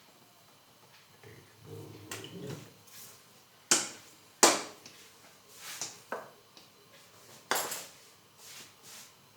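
Kitchen things being handled: about five sharp knocks and clatters, the loudest a little under four and five seconds in, with a short low rumble about a second and a half in.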